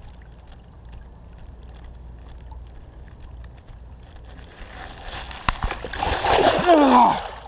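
Water splashing and sloshing as hands grapple with a fish held by the tail in a shallow stream. A low steady water noise at first, becoming louder and busier, with a few sharp knocks, from about five seconds in until just before the end.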